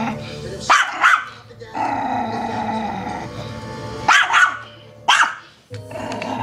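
Small terrier growling in long, drawn-out stretches at its own reflection in a mirror, broken by sharp barks: two about a second in, two a little past four seconds, and one about five seconds in.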